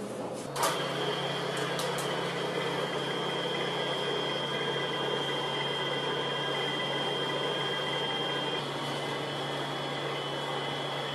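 Commercial bakery dough mixer running, its hook turning flour in the bowl: a steady motor hum with a high whine. A sharp click about half a second in, after which the whine sets in.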